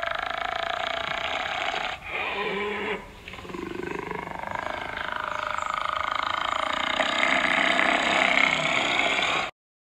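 Drawn-out animal calls from a sound-effect track made up of hyena and wolf recordings, put together to stand for a brown hyena. The calls break briefly about two and three seconds in, then one long call swells louder and cuts off suddenly near the end.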